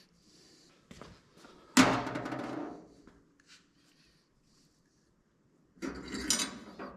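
Workshop clatter of tools and parts being handled: a sharp knock about two seconds in that rings on for about a second, then a run of clattering knocks near the end.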